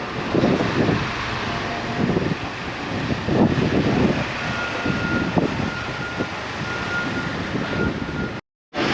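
Busy city street: traffic running, with indistinct voices of passers-by. In the second half a faint high beep repeats about twice a second. The sound drops out briefly just before the end.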